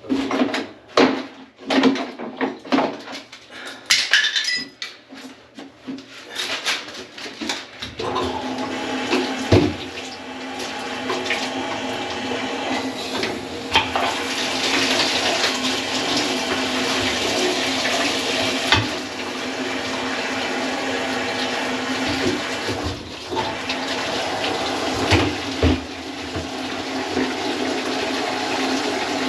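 Scattered clatters and knocks for the first several seconds, then from about eight seconds a continuous rush of water with a steady low hum under it that runs on to the end, broken by a few knocks.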